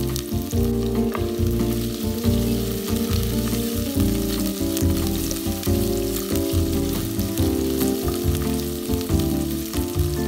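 Garlic, ginger and red onion sizzling as they fry in hot oil in a nonstick pot, stirred with a spatula; a steady crackle throughout.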